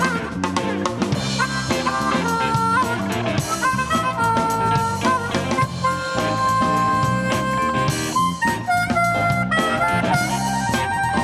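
Live blues band playing: an amplified harmonica, cupped against a microphone, plays long held and bending notes over electric guitar, bass, keyboard and drum kit.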